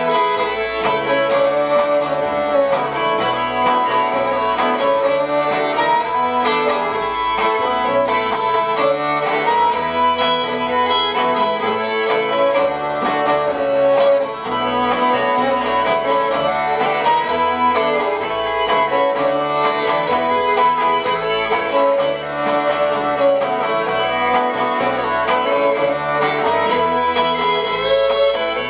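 Instrumental folk tune on two fiddles, backed by strummed acoustic guitar and upright double bass.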